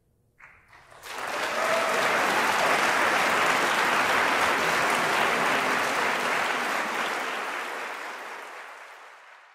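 Audience applauding: the clapping swells in about a second in, holds steady, then fades away near the end.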